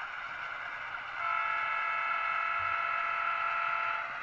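Sound-equipped HO-scale model diesel locomotive sounding its horn: one steady multi-note chord held for about three seconds, starting about a second in, over a steady background hiss through the model's small speaker.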